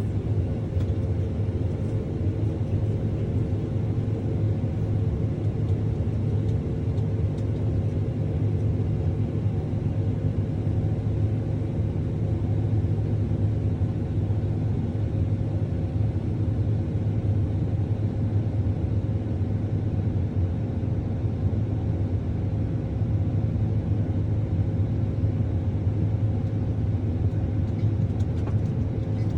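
John Deere S-Series combine running with a steady low drone and a constant hum, its unloading auger emptying grain into a truck.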